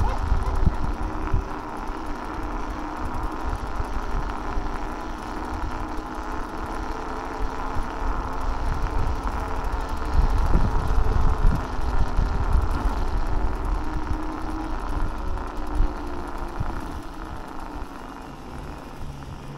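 Teverun Blade GT II electric scooter being ridden: wind buffeting the microphone and road rumble, with a faint wavering whine from the motor. It gets quieter over the last few seconds.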